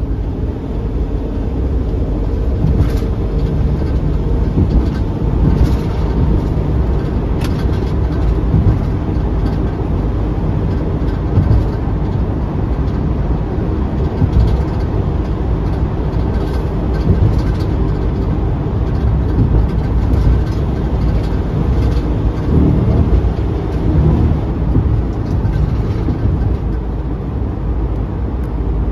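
Steady highway driving noise heard from inside a car's cabin: the rumble of tyres on the road and the car moving at speed, heaviest at the low end, with a few faint clicks.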